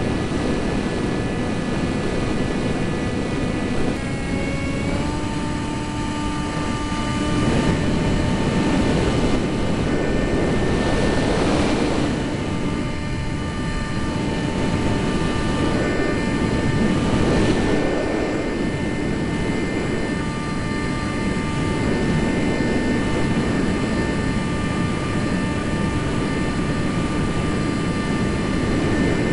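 Eurofighter Typhoon's twin EJ200 turbofan engines running steadily, with a whine of several tones that steps up in pitch about four seconds in. Gusty wind noise on the microphone swells and fades over it.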